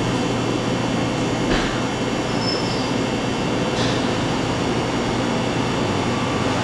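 Steady noise of running kitchen machinery. Two faint taps come through it, about one and a half and four seconds in, as eggs are cracked and separated by hand.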